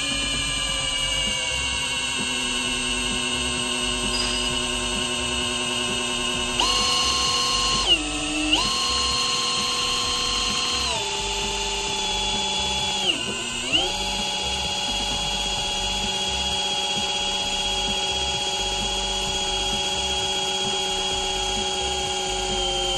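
Electric drill spinning the oil pump of a rebuilt 454 big-block marine V8 to prime its oil system before first start. A steady whine that dips in pitch and recovers twice, about eight and thirteen seconds in, and stops at the very end.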